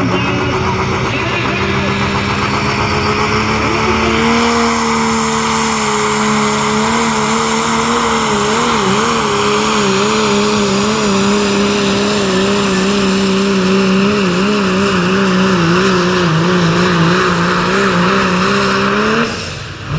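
Diesel 4x4 pickup of the 3.0 limited pro class pulling a weight-transfer sled: the engine is held at high revs under full load, its pitch climbing a little, then sagging slowly and wavering as the sled bears down, over a heavy rush of turbo and exhaust noise. The sound stops abruptly about a second before the end.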